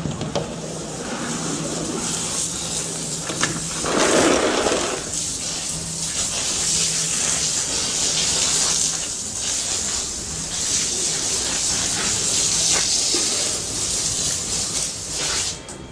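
Water running from a coiled garden hose: a steady spraying hiss, louder and fuller for about a second around four seconds in.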